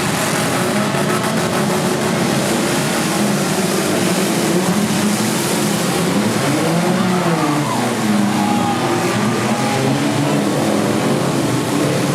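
Several four-cylinder demolition derby cars' engines running and revving together, their pitches rising and falling over one another around the middle.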